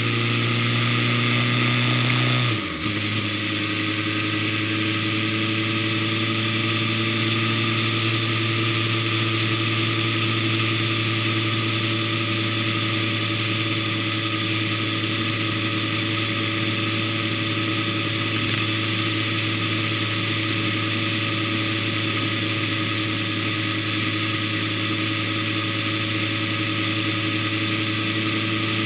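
Vehicle engine running steadily at cruising speed, heard through an onboard camera with wind and road hiss. About three seconds in, the engine sound dips briefly and comes back lower in pitch, as in an upshift.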